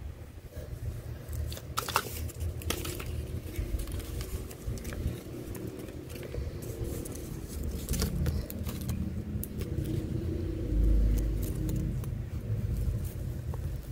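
Small objects being handled on a computer desk: scattered clicks and rattles over a steady low rumble, with a heavier low bump about eleven seconds in.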